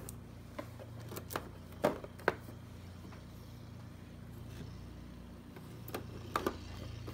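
Plastic snack cups and small cardboard juice boxes being handled and set down in a mini fridge and on a table: a few light knocks and taps, a cluster in the first two seconds and another near the end, over a low steady hum.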